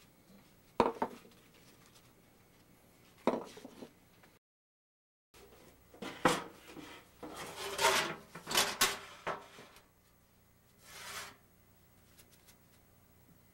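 Metal parts of a Coleman propane camp stove being handled on a wooden bench: two sharp knocks, a short break of total silence, then a run of metallic clanks and rattles as the stove's steel case is handled and opened.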